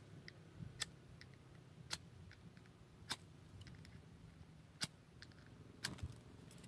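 Burning wood crackling in a log stove under a cooking pot: sharp, irregular snaps about once a second over a quiet background.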